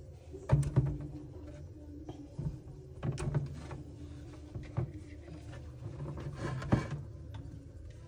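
Scattered clicks and knocks of hands pulling wire terminals off a refrigerator fan motor and handling its plastic parts, about half a dozen in all, over a steady low hum.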